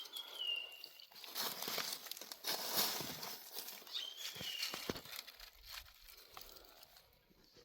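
Crinkling and rustling from handling the yabby pot and its catch, with scattered clicks. Two short, falling, whistle-like squeaks come through, one at the start and one about four seconds in.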